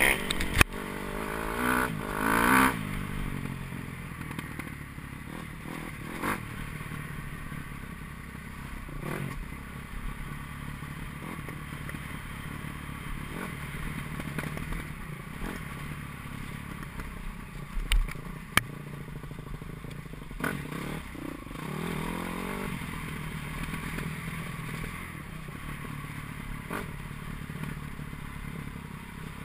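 Kawasaki KX250F four-stroke single-cylinder dirt bike engine running under way, heard from a camera on the bike, with the revs rising twice, near the start and about two-thirds through. Chassis rattles and a few sharp knocks as the bike rides over a rutted muddy track.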